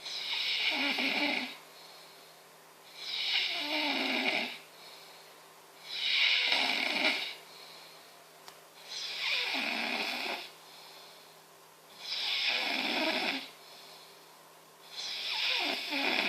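Heavy snoring in a steady rhythm: six loud snores, one about every three seconds, each lasting a second or so, with softer breathing between them.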